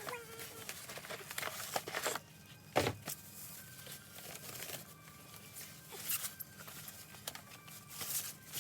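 Packaging being handled, with irregular crinkling and tearing rustles and one sharp knock about three seconds in. Faint background music runs underneath.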